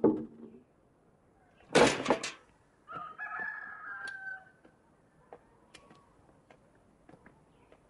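A short, loud, noisy crash-like burst about two seconds in, followed by a rooster crowing for about a second and a half, then a few faint scattered knocks.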